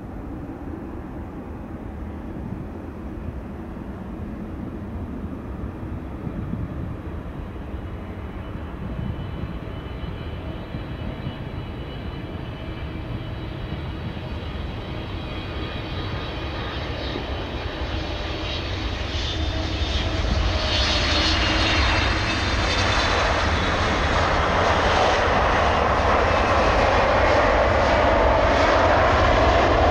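Boeing 777-300 jet airliner on final approach and landing, its twin turbofan engines growing steadily louder as it nears. Falling, whining engine tones sweep down over a deep rumble. The sound swells sharply about two-thirds in as the jet passes close over the runway and touches down.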